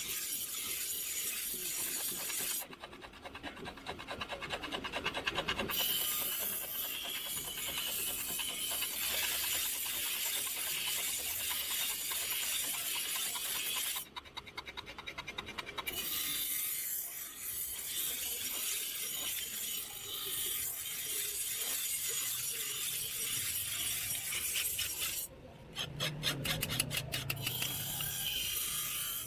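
Steel sickle blade being filed by hand: continuous rasping and scraping, broken by three stretches of rapid, even ticking.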